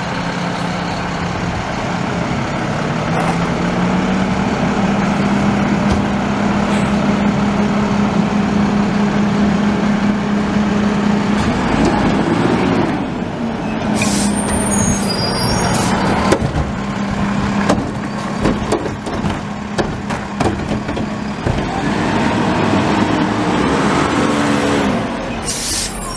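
Diesel engine of a front-load garbage truck running hard, its pitch rising a few seconds in and then holding steady as the truck pulls up and passes close by. Short air-brake hisses come at about the middle and again near the end.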